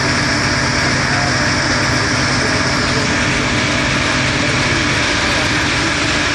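CLC 200-SZ MULTIRUN gear shaping machine running: a steady, even mechanical running noise with a few held tones.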